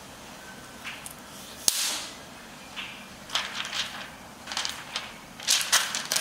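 Protective plastic film being peeled off a new laptop LCD screen. There is a sharp snap about two seconds in, then a run of short crackling rustles that grow thicker near the end.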